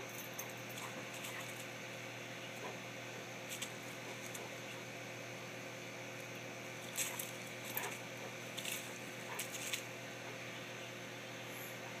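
A dog nosing and pawing at a small wire-cage bird feeder on dry leaves: scattered short clicks and rustles, a cluster of them about two-thirds of the way through, over a faint steady hum.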